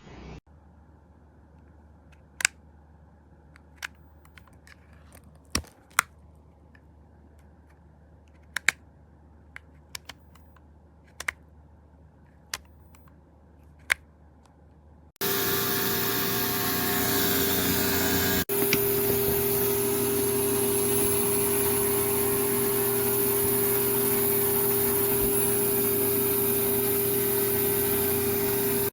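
A series of sharp plastic clicks, then a few seconds in a pet grooming vacuum's motor switches on and runs steadily, a loud rushing noise with a constant whine. It cuts off suddenly at the end.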